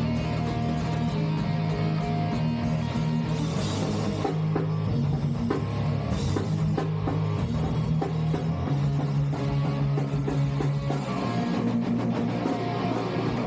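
Rock music with electric guitar and drum kit: held low guitar chords over a steady beat.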